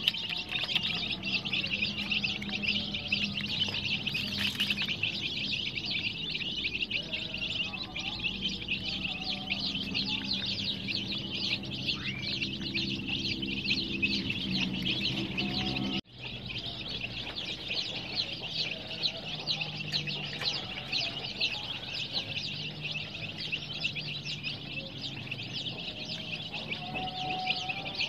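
A crowd of domestic chicken chicks peeping continuously, many high, rapid cheeps overlapping into one steady chorus, with a momentary break about halfway through.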